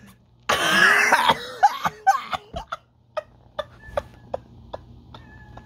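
A person coughing: one loud, harsh cough about half a second in, then several shorter coughs, followed by faint scattered clicks.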